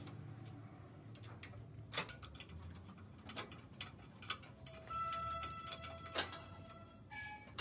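Hand wrenches working bolts on a tractor engine's cylinder head: scattered ratchet clicks and light metal-on-metal taps. About five seconds in, a steady high tone sounds for about two seconds, followed by a brief tone at a different pitch near the end.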